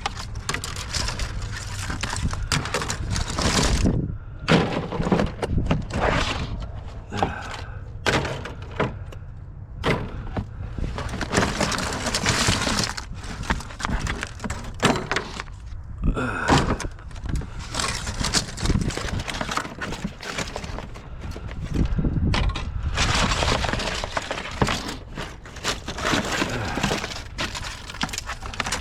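Scrap being broken up or thrown about: an irregular, continuous run of crashes, cracks and clattering knocks.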